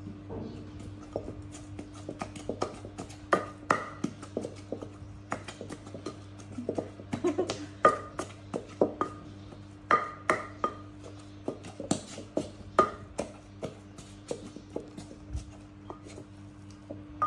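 Wooden pestle pounding in an earthenware mortar: irregular knocks, about two to three a second, some leaving a short ringing ping from the mortar.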